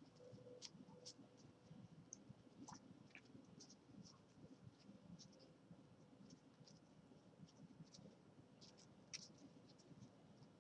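Very faint, irregular soft clicks and scratches of a stack of baseball trading cards being flipped through by hand, card sliding over card.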